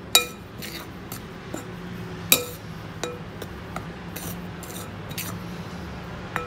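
Metal spoon stirring powdered sugar in a glass bowl, clinking against the glass about five times with short ringing tones, the loudest about two seconds in.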